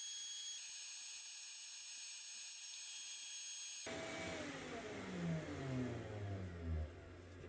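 CNC router spindle running with a steady high-pitched whine while carving. About four seconds in, the sound cuts abruptly to a motor winding down, its pitch falling over about three seconds, and a low steady hum remains.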